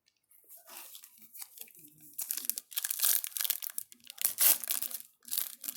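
Wrapper of a trading card pack being torn open and crinkled, crackling that grows louder about two seconds in.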